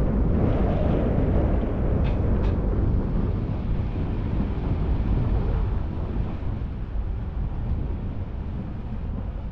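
Low rumble of a car driving slowly along a road, engine and tyre noise on the asphalt, gradually getting quieter in the second half.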